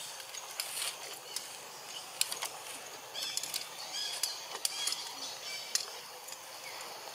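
Short high animal chirps in quick runs over a background of scattered sharp clicks and rustling.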